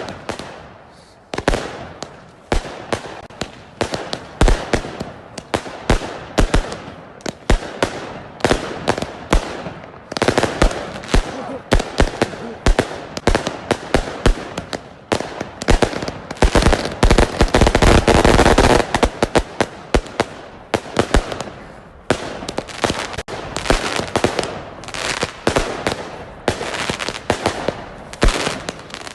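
Six fireworks cakes (multi-shot batteries) firing at once: a continuous, rapid string of shots and bangs. The firing is densest and loudest in the middle, thins briefly, then picks up again.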